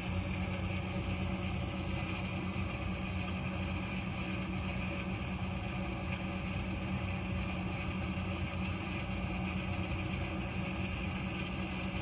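Steady rumble of a train with a low hum, holding an even level throughout.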